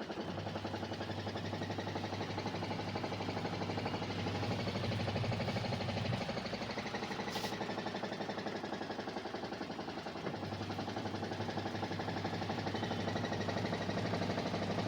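Washing machine running: a steady low motor hum that drops away about six seconds in and comes back about four seconds later, with a brief hiss in the gap.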